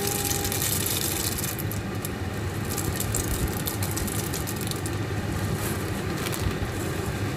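Macaroni sopas boiling in a metal pot while a spoon stirs it: scattered light clicks and scrapes of the spoon against the pot over a steady bubbling hiss.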